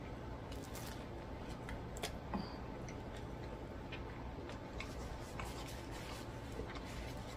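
Close-up chewing of a mouthful of toasted steak and cheese sandwich: faint, scattered mouth clicks and soft crunches over a low steady hum.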